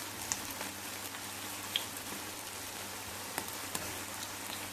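Aloo tikki (potato patties) shallow-frying in oil in a pan: a steady, low sizzle with a few small pops.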